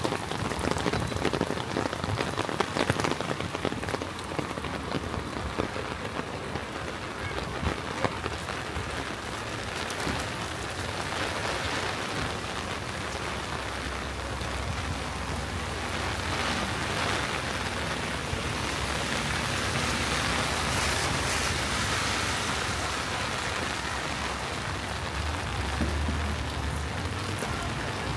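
Steady rain falling and pattering on surfaces, with many small sharp drop ticks in the first half and a smoother hiss later. A low rumble comes in near the end.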